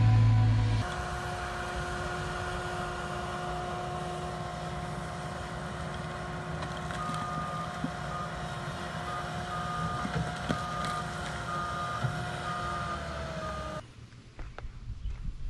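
Compact track loader running with a steady engine and hydraulic whine, its reversing alarm beeping regularly from about halfway through. A heavy engine hum is briefly heard at the very start, and near the end the sound cuts to a much quieter stretch with a few footsteps.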